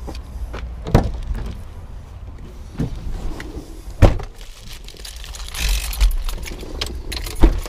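Thumps of a Ford minivan's driver door and seat as someone climbs in, the loudest about four seconds in, over a low rumble of wind on the microphone. A paper burger wrapper crinkles shortly after.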